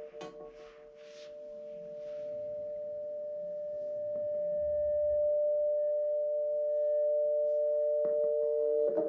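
Feedback from a karaoke microphone held in a trumpet's bell: two steady pure tones that swell slowly over several seconds and then hold. A few soft handling taps come in the first couple of seconds.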